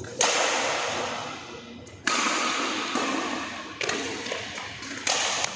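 Badminton rackets striking a shuttlecock in a rally: four sharp hits roughly two seconds apart, each ringing on in the echo of a large hall.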